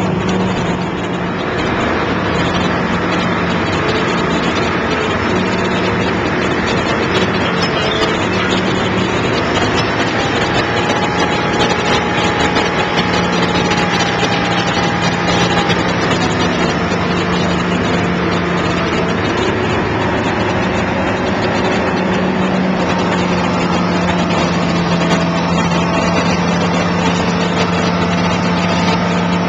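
Caterpillar excavator's diesel engine and hydraulic pump running steadily under load, powering a hydraulic pile cutter as it crushes a concrete pile. A higher steady whine joins for several seconds midway.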